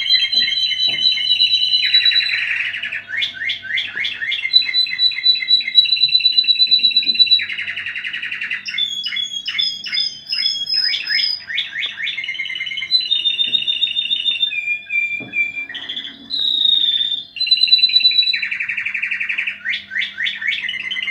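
Spanish Timbrado song canary singing a long unbroken song: fast runs of repeated notes and rolling trills alternate with clear held whistles and a few harsh rattling phrases.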